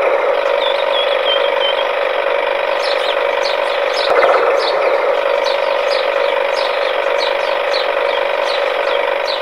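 Small electric gear motor of a homemade toy tractor running steadily as it drives. Short high chirps come about twice a second from about three seconds in.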